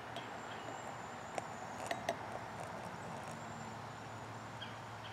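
Water poured slowly from a plastic pitcher into a tall glass of red foaming hydrogen-peroxide and yeast mixture, faint under a steady outdoor hiss, with a few light clicks. A faint thin high whine runs through the first few seconds.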